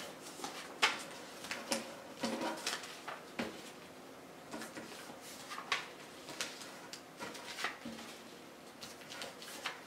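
A sheet of coloured paper being folded by hand into a tight accordion: a string of short, irregular crinkles and soft taps as each fold is creased down against the table.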